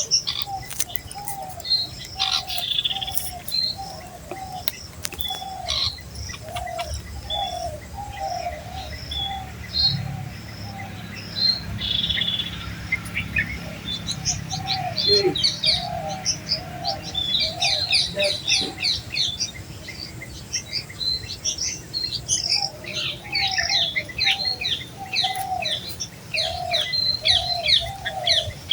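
Red-vented bulbuls chirping with quick, high notes that grow dense about halfway through, over a run of lower calls repeated about twice a second.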